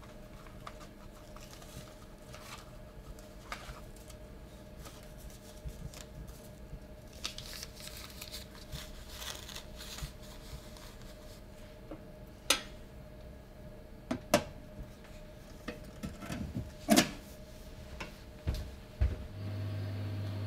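Scattered light clicks, knocks and clinks of dishes and small objects handled behind a café bar over steady room tone, with a few sharper knocks in the second half. A steady low hum comes in near the end.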